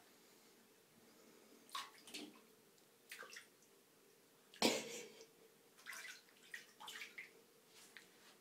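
Two kittens scampering and pouncing in shallow water in a bathtub: scattered short splashes and paw pats on the tub, the loudest a little past halfway.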